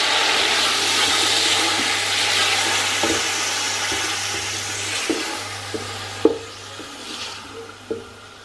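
Chopped tomatoes sizzling in hot oil with cumin seeds in a large aluminium pot, stirred with a wooden spoon that knocks against the pot several times. The sizzle dies down gradually as the tomatoes cool the oil, and the loudest knock comes about two-thirds of the way through.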